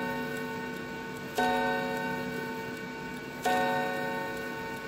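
Hermle 340-020 mantel clock movement's hammer striking a steel chime rod twice, about two seconds apart, on the same note each time. Each note rings on and fades slowly until the next strike, with the movement's faint ticking beneath.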